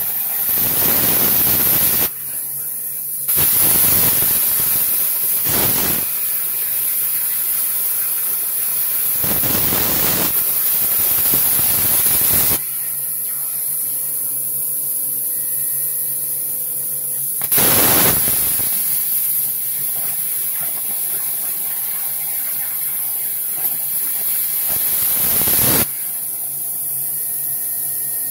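CNC plasma cutter's torch arc cutting 2 mm hot-rolled steel plate: a loud rushing hiss that comes in stretches as the torch fires for each cut, first about two seconds, then about nine seconds, then a one-second burst past the middle and a shorter one near the end. Between the cuts a quieter steady hiss and hum go on.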